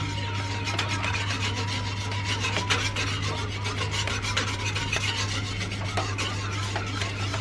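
Egg whisk scraping around a wok as it stirs a herbal drink heating on the stove: a quick, continuous run of rasping strokes, over a steady low hum.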